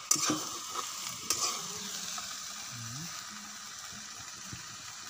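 Chopped vegetables sizzling in a hot metal kadai, a steady hiss, with a couple of short knocks of the stirring ladle near the start and about a second in.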